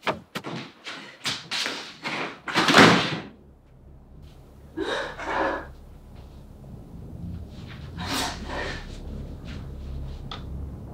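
Quick footfalls and knocks on wood, ending in a heavy thud like a door banging about three seconds in, then a few softer breathy sounds over a low steady hum.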